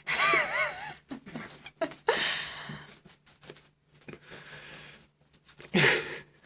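Cavapoo puppy vocalising while it frets over its wet tail. It gives a wavering, high whine in the first second, then a series of wheezy, huffing noises, with a louder rough yelp or grumble just before the end.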